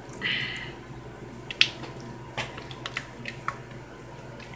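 Rubber spatula scraping thick cheesecake batter out of a mixing bowl into foil pie pans: soft wet squishing and plopping with a handful of sharp clicks and taps of the spatula against the bowl, the loudest about a second and a half in.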